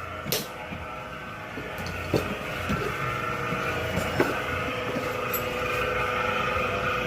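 A 100-litre soap mixer machine running with a steady mechanical whine and hum, with a few sharp knocks and clicks over it.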